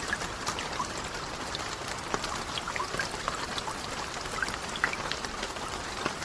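Steady rain falling, with individual drops pattering distinctly against a steady hiss.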